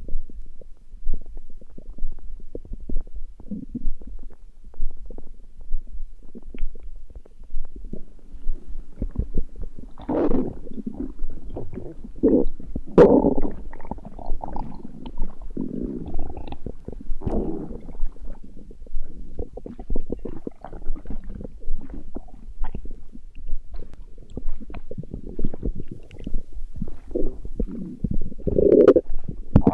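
Human stomach growling: bubbling, gurgling rumbles full of small clicks and pops. The gurgles swell strongest through the middle and again near the end.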